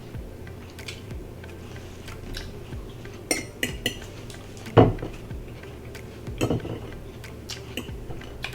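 Cutlery clinking and scraping against plates and dishes while eating: a scattering of sharp knocks and clinks, the loudest about five seconds in.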